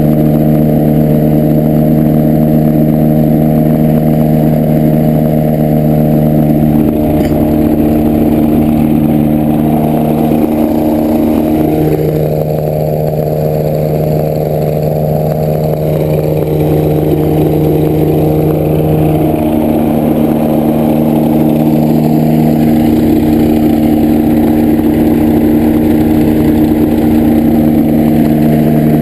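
Powered parachute engine running steadily on the ground, shifting in pitch a few times around the middle as the throttle changes.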